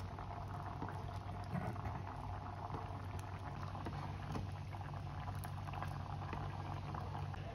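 Thick, creamy risotto bubbling and popping in a saucepan on a gas burner while it is stirred with a wooden spatula: a steady crackle of many small bursting bubbles.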